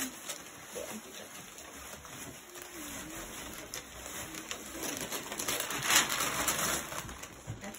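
Paper gift bag crinkling and tearing as a boxed present is pulled out of it, with the loudest rip about six seconds in.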